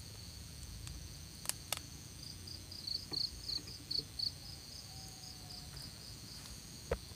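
Insects calling steadily at a high pitch, with a run of quick, evenly spaced chirps, about four a second, from about two and a half to four and a half seconds in. A few faint clicks sound over it.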